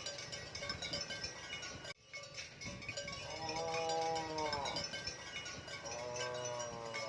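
A cow mooing twice, each moo a long pitched call of about a second and a half that falls away at its end, over steady background music.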